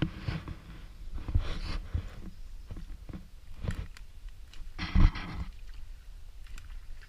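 Footsteps and brush rustling as someone walks through undergrowth, with irregular low thumps; the loudest rustle comes about five seconds in.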